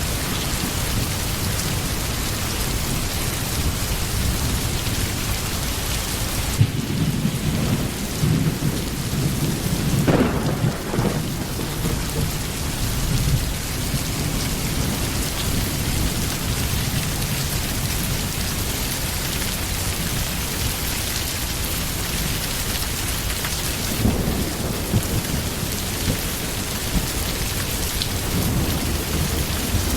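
Steady heavy rain with rolling thunder: a long rumble from about six seconds in to about thirteen seconds, and a shorter one near the twenty-four second mark.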